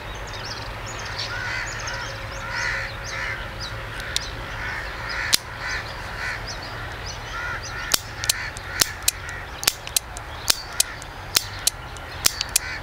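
Crows cawing repeatedly over low wind rumble on the microphone. A couple of sharp clicks come mid-way, then from about eight seconds in a quick string of sharp metallic clicks, about two a second: the action of a Webley Mark III .455 revolver being worked and dry-fired.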